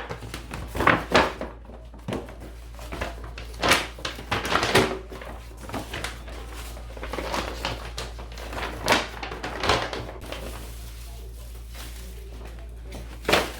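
Irregular knocks and clatter of food containers, shelves and drawers being handled and put away in a refrigerator, with a few louder knocks among them, one just before the end.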